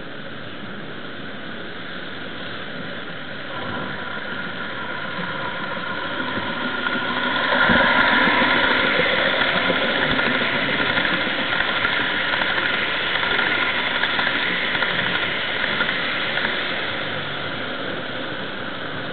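HO-scale model train running past close by on the layout, its mechanical running noise swelling over several seconds, loudest about eight seconds in, then slowly fading.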